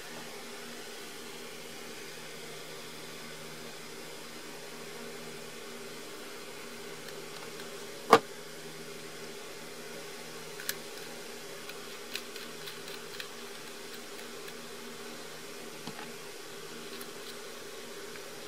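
Steady low room hum, with a sharp click about eight seconds in and a few lighter clicks and taps after it as the parts of a pen-style soldering iron are handled: cap pulled off and tip section unscrewed.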